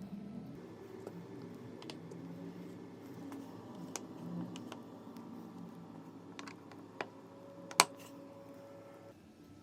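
Scattered light clicks and taps of small hard objects being handled, with one sharp, louder click near the end, over a low steady hum.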